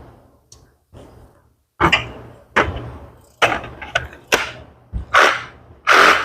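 A series of sharp knocks and thuds, about one a second, each dying away quickly; the last two, near the end, are longer and louder.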